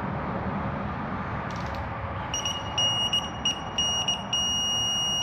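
Digital torque wrench beeping as an oil pump bolt is tightened to 89 inch-pounds: a run of short high beeps starting about two seconds in, then one long steady beep near the end as the set torque is reached.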